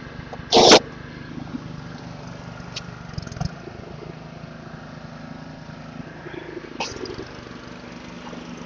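Pressure washer engine running steadily nearby, a low rumble. A brief loud burst of noise comes about half a second in.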